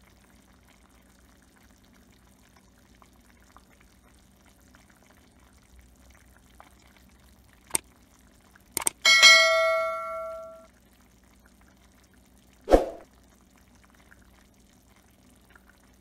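Subscribe-button overlay sound effect: a few sharp clicks followed by a bright bell ding that rings out and fades over about a second and a half, then a single short knock a few seconds later, over a faint steady hum.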